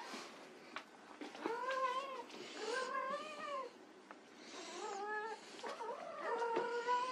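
Persian kitten meowing four times, each meow rising and then falling in pitch.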